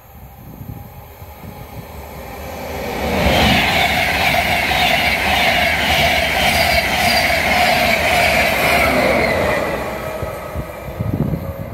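InterCity 225 express train, Mark 4 coaches with a Class 91 electric locomotive, passing at speed: the rush of the train builds over about three seconds, holds steady with a steady whine and a rapid clatter of wheels on rail, then fades as it draws away.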